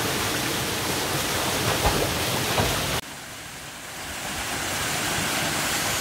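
Steady rush of a small waterfall pouring into a rock pool, with a few soft low bumps in the first half. About three seconds in it cuts to a quieter rush that builds back up over the next two seconds.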